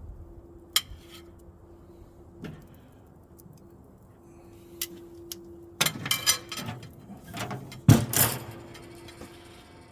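Metal clinks and knocks from tongs on the charcoal grill's grate as steaks are set down, then a loud metal clunk about eight seconds in, the grill lid being shut.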